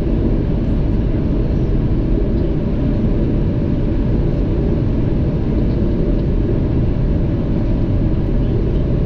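Steady cockpit noise of a Gulfstream business jet on final approach: a constant low rumble of airflow and engines with no change through the descent.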